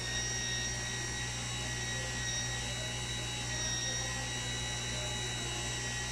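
Turbine Wash mini washing machine's motor running steadily, churning a batch of dishwashing-liquid mix to dissolve the gel: a steady hum with a constant high whine.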